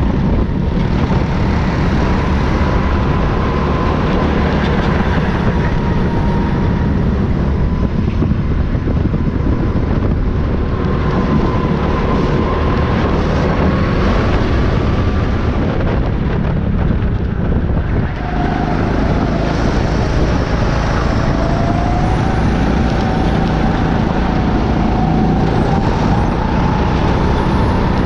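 Rental go-kart engine running at racing speed, its pitch wavering up and down through the corners over a heavy rumble of wind and road noise. About two-thirds of the way through the engine briefly lets off, then picks up again with a climbing pitch.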